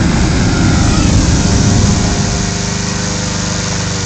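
Small petrol engine of a hot-air balloon inflator fan running steadily, with the rush of the fan's air, a little louder in the first two seconds.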